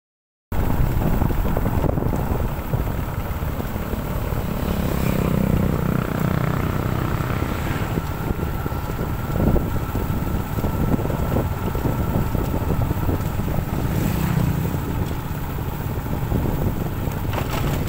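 Motorcycle engine running while riding, under heavy wind noise on the microphone that stays steady throughout.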